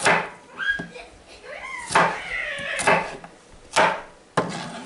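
Chef's knife chopping garlic cloves on a plastic cutting board: about six sharp knocks, roughly one a second. A few high rising and falling cries sound in the background early on.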